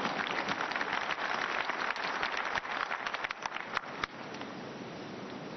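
Congregation applauding, the clapping dying away about four seconds in.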